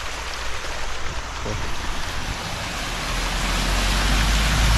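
Water rushing across a flooded road crossing, and a pickup truck driving through it, its tyres splashing and its engine rumbling. The rumble and splash grow louder over the last couple of seconds as the truck comes close.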